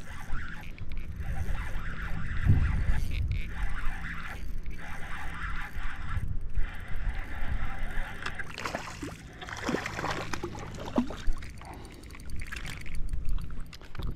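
Water sloshing and gurgling against the hull of a small fishing boat, with a few brief splashes later on as a hooked redfish is fought up to the side of the boat.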